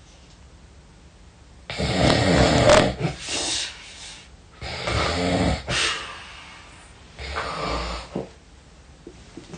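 A person snoring heavily: loud, rough snores, each about a second long, coming every two to three seconds from about two seconds in.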